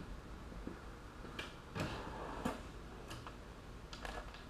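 A handful of sharp, separate clicks and light knocks, about five over a few seconds: tools being handled on a shop floor.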